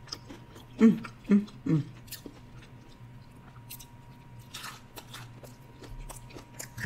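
Close-miked chewing and biting of fried shrimp: wet mouth clicks and small crunches throughout. About a second in come three short hums, one after another, each dropping in pitch.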